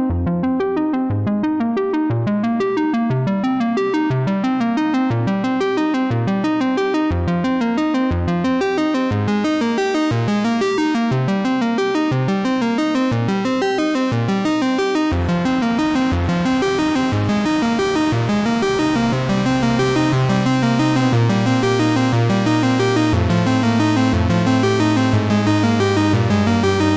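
Background music: synthesizer and keyboard playing a repeating note pattern, filling out about halfway through, with a sustained low bass note coming in near the end.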